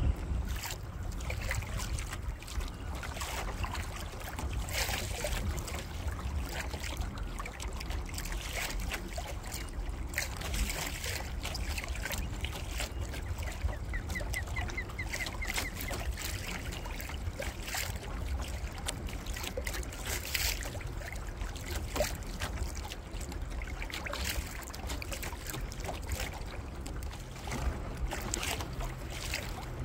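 Small waves lapping and splashing irregularly against a kayak's hull, over a steady rumble of wind on the microphone. About halfway through there is a short, fast run of ticks.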